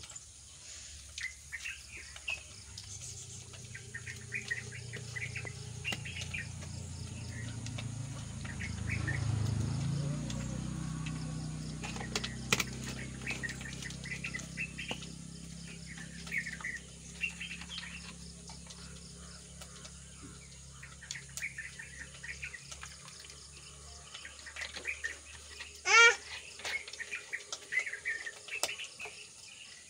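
Small birds chirping and twittering all around, with a low drone that swells about a third of the way in and slowly fades away. Near the end one short, much louder call stands out above the chirps.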